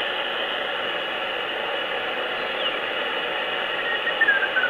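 Hiss of 40-metre band noise from a Sproutie Mk II regenerative shortwave receiver's speaker as it is tuned across the band. Past the middle a broken Morse code tone comes in and slides steadily down in pitch as the tuning dial turns.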